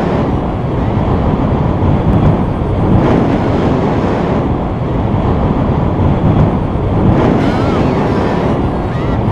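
Airflow from a hang glider's flight buffeting the wing-mounted camera's microphone: a loud, deep, unsteady rush of wind noise that swells and dips.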